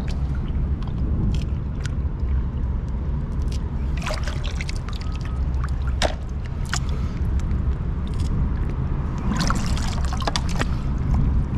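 Shallow seawater sloshing and trickling around a hand working along a pylon, with sharp clicks of mussel shells knocking together as they are pulled off and dropped into a plastic tub, a cluster of them near the end. A steady low rumble runs underneath.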